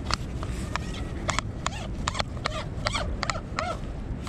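Telescopic landing-net pole and frame being handled and collapsed: a quick run of sharp clicks and clacks, with a few short squeaks mixed in and a low wind rumble underneath.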